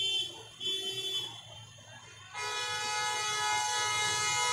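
Vehicle horn honking: two short blasts, a brief pause, then one long steady blast held from a little past two seconds in.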